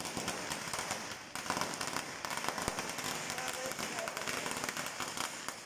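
Firecrackers going off in a dense, irregular run of rapid pops and crackles that keeps on without a break.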